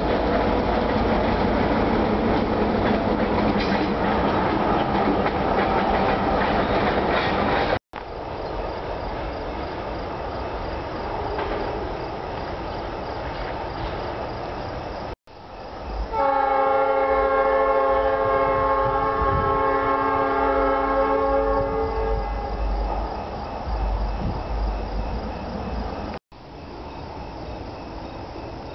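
Several clips of rumbling vehicle noise joined with abrupt cuts. A little past the middle, a horn sounds a chord of several held notes for about six seconds, then fades.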